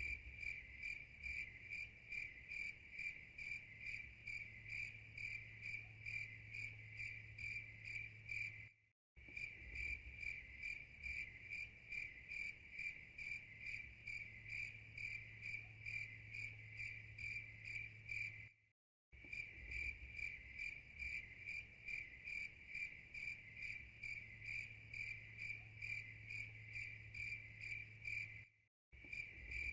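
A cricket chirping steadily, an even run of about three high, clear chirps a second. The chirping stops dead for a moment about nine seconds in, again near the middle and once more near the end, each time starting straight back up.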